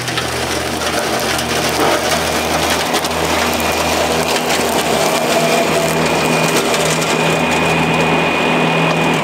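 Greenworks Pro 60V electric zero-turn riding mower driving with its blades spinning, cutting tall grass and weeds: a steady motor whine over the rush of the cutting deck, with a thin high tone coming in about three seconds in. The sound cuts off suddenly at the end.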